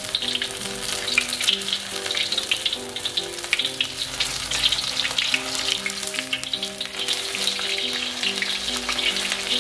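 Shrimp-and-chive fritter batter frying in hot oil in a wok, the oil sizzling with dense, fast crackles throughout. A soft background melody of held notes plays underneath.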